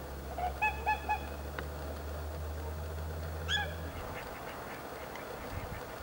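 Swans calling, three quick honking notes about half a second in and a single one around three and a half seconds, as the birds begin their take-off run across the water. A steady low hum runs underneath and stops about four seconds in.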